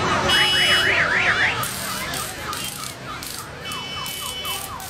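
Warbling electronic alarm: a pitch sweeping quickly up and down several times, then a run of short dipping chirps. A steady shrill tone sounds briefly near the start and again near the end, over street noise.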